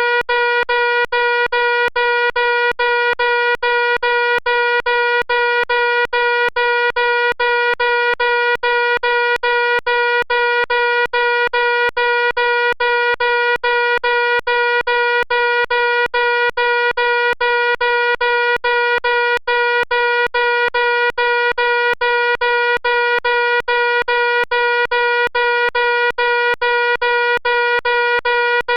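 Fire alarm sounding continuously: a loud, steady tone that holds one pitch throughout.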